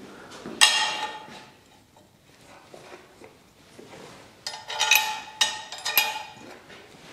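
Steel parts clinking and ringing as a steel spacer is set on the axle bracket and bolted down. There is one sharp ringing clink about half a second in, then a quick cluster of clinks between about four and a half and six seconds.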